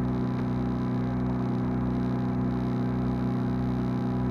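A sailing yacht's engine running steadily under motor, heard on board: an even drone made of several steady tones, with a slow throb in its lowest notes.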